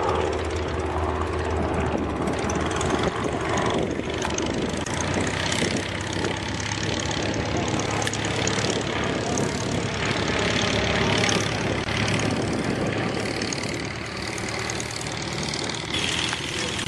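Vintage propeller aircraft engines running, a steady piston-engine drone with propeller noise.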